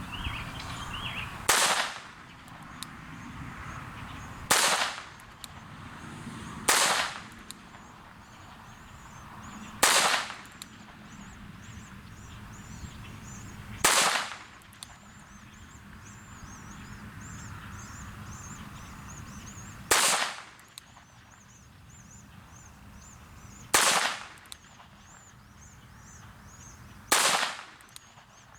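.22 revolver fired single action, eight shots spaced unevenly, about two to six seconds apart, as the shooter takes time to aim each one.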